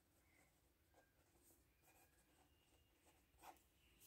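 Very faint pen scratching across notebook paper in short strokes, with a soft tap about three and a half seconds in; otherwise near silence.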